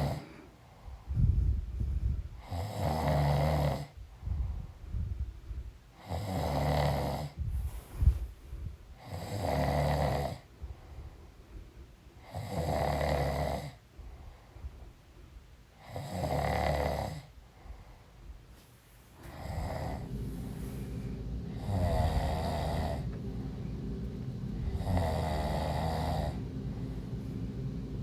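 A pregnant woman snoring in her sleep, one snore about every three to three and a half seconds. A steady low hum comes in about two-thirds of the way through.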